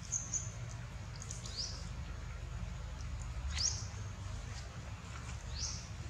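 Short, high-pitched animal chirps, each rising quickly in pitch, repeated about every two seconds, over a low steady rumble.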